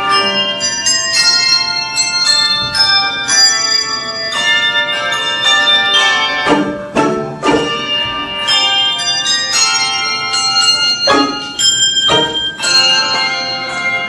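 Handbell choir playing a piece: many handbells struck one after another, their clear tones ringing on and overlapping into chords.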